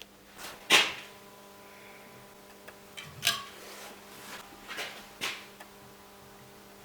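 Four sharp knocks, the first and loudest a little under a second in and the rest spaced over the following few seconds, over a steady electrical hum.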